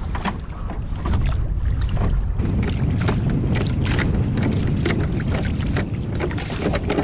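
A rowed dinghy on open water: wind rumbles on the microphone over choppy water splashing and slapping against the small hull as the oars work. The short splashes get busier and brighter from a couple of seconds in.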